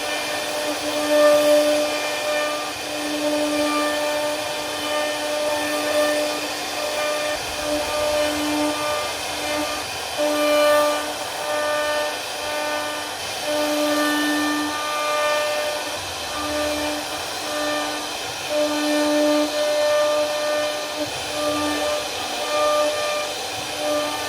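CNC router spindle running at constant speed while the bit carves wood: a steady whine that keeps one pitch and swells and fades every second or so, over a continuous cutting hiss.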